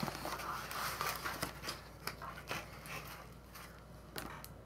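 Cardboard box lid being lifted off and the contents handled: rustling, scraping and small clicks of cardboard and a bagged comic book, busier at first and fading toward the end.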